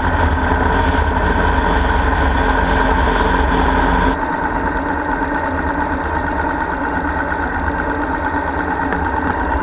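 Motorcycle engine running with heavy wind rumble on an onboard camera microphone while riding on a highway. About four seconds in the sound steps down and becomes a little quieter.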